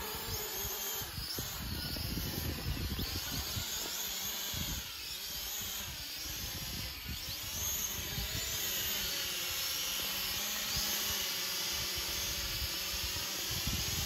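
Steady high insect buzzing, with wind buffeting the microphone in low gusts.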